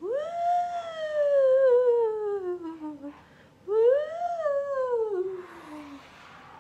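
A woman's voice imitating a howling snowstorm wind, 'hoooo woooo', twice: each a long sliding call that rises and then falls slowly, the first about three seconds long, the second shorter. Near the end comes the soft rustle of a board-book page being turned.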